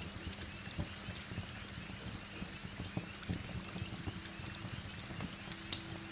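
Heavy rain falling steadily, with a wood fire crackling through it: scattered small pops and one sharp snap near the end. Under them sits a low steady tone, joined about midway by a second, higher one.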